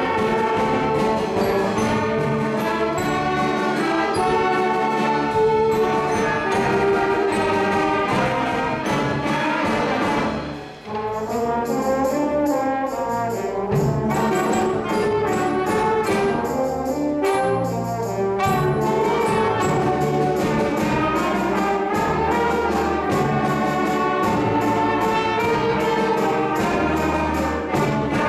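School concert band of woodwinds and brass (flutes, clarinets, saxophones, French horn, trombones) playing, with a brief drop in sound about eleven seconds in before the full band comes back in.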